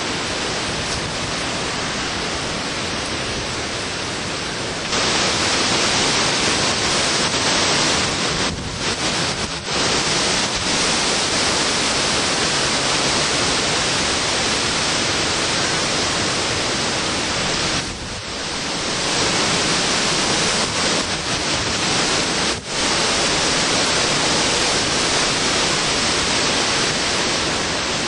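Hurricane-force wind and driving rain: a loud, continuous rush that strengthens about five seconds in and eases for a moment twice later on.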